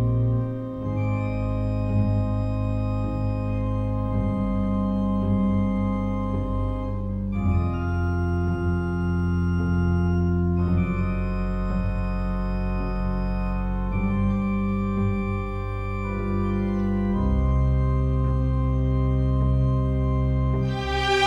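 Slow adagio played on organ: long sustained chords, each held for several seconds before moving to the next. A louder, brighter passage begins right at the end.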